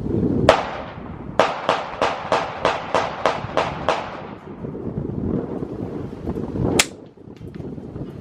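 Gunshots with short echoing tails: a single shot, then a quick even string of about nine shots at roughly three a second, then one more shot near the end.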